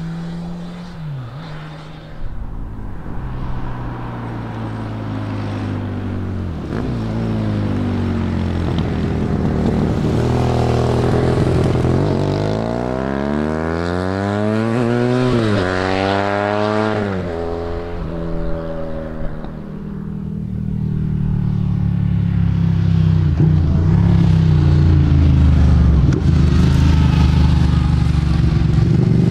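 Several motorcycles pass in turn and pull away. About halfway through, one engine revs up hard, its pitch climbing steeply and dropping back at a gear change. Near the end a Ducati Panigale's engine grows loudest, running at low revs as it pulls out through the junction.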